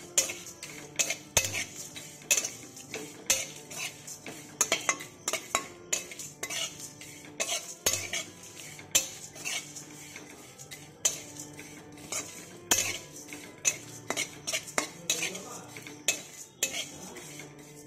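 Metal spatula scraping and knocking against a dry metal kadai while stirring whole spices as they dry-roast, with the seeds rattling along the pan. The strokes come irregularly, a couple a second.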